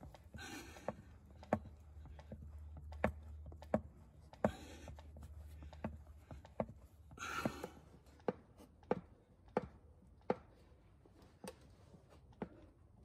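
A hand-operated oil pump on a bottle of gear oil clicks with each stroke, about one stroke every two-thirds of a second, as oil is pumped up a hose into the BMW E30's manual gearbox. The pumping is heavy going. Three short hisses fall between the strokes.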